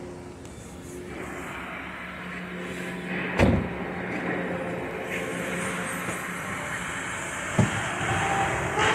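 Subaru EJ203 2.0-litre flat-four engine idling steadily, with two loud thumps, about three and a half seconds in and again near the end.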